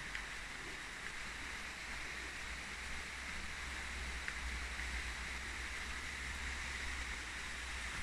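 Steady rush of running water from a nearby stream or waterfall, with a low rumble underneath.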